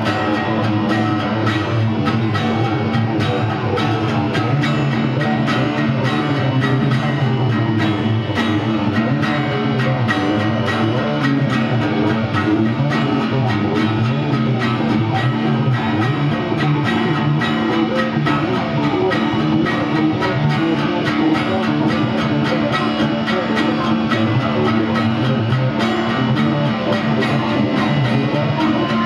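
An electric guitar and a strummed acoustic guitar playing together without singing, the acoustic strummed steadily in quick, even strokes.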